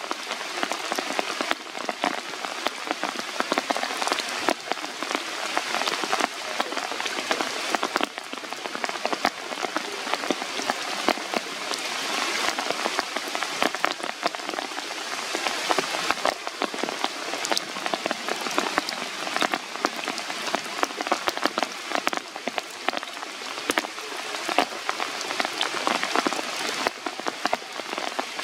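Steady rain falling on the leaves of the forest canopy, with many individual drops striking close by throughout.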